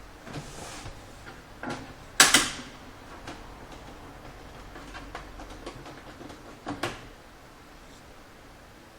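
Plastic hinge cover on an HP Officejet 6500 printer being pried off its clips: scattered clicks and light scrapes, with one loud snap a little over two seconds in and another sharp click near seven seconds.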